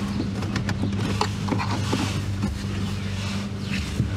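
Plastic dash trim clicking, snapping and creaking as it is worked loose by hand, over a steady low hum.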